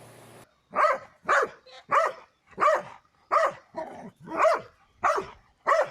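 A dog barking over and over, about eight evenly spaced barks, roughly one every two-thirds of a second.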